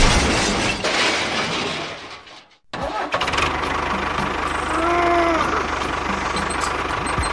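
A loud noisy crash fades out over the first couple of seconds. After a brief gap an engine starts and runs steadily at idle with a low even chug. A short rising-and-falling tone sounds over it about five seconds in.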